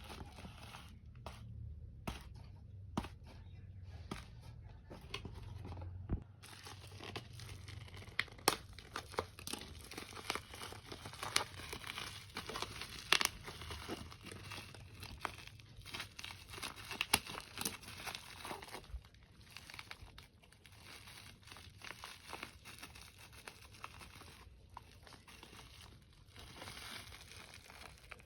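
Plastic parcel packaging being torn open and crumpled by hand: a continuous run of crinkling and tearing with many sharp crackles.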